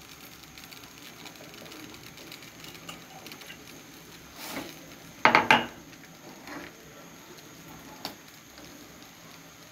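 A metal ladle stirs boiling jaggery payasam in a metal pot. It knocks and scrapes against the pot a few times, loudest about five seconds in, with one more light click near the end, over a faint steady bubbling.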